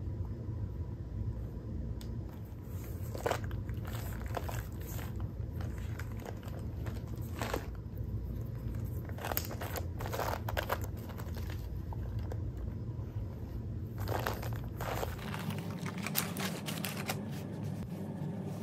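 Intermittent crinkling and rustling of unboxing packaging, tissue paper and a cotton dust bag, as a leather handbag is lifted and handled, in scattered short bursts over a steady low hum.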